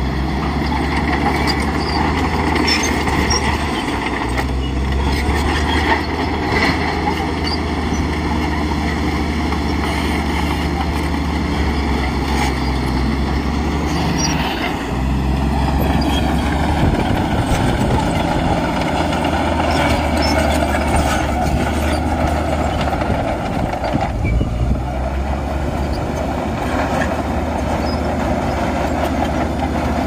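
Heavy diesel engines of earthmoving machinery running loud and steady under work. The engine note shifts about halfway through and again about three quarters of the way in, with a few brief sharp metallic sounds over it.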